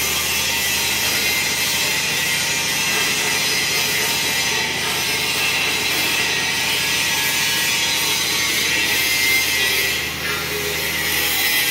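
Clay brick making machine running with a steady, hissy mechanical noise that barely changes.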